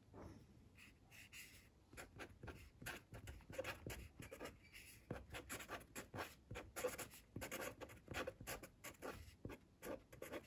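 Handwriting on paper: a faint run of short, quick scratchy strokes as characters are written, starting about two seconds in.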